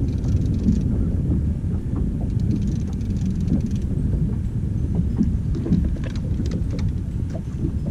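Steady wind rumble buffeting the microphone on open water, with faint scattered clicks throughout.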